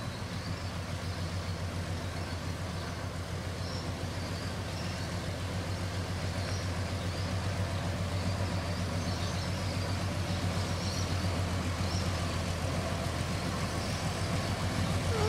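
Engine of a 1938–39 White model 802 truck running steadily at low speed as the truck creeps forward, slowly growing louder as it draws closer.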